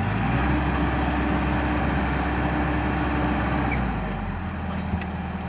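Excavator's diesel engine running steadily, its note easing down and getting a little quieter about four seconds in.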